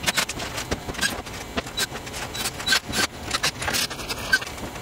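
Irregular sharp clicks and clacks of hand tools, bolts and plastic cover parts being handled while an engine cover is refitted, a dozen or so quick taps, most of them in the first three seconds or so.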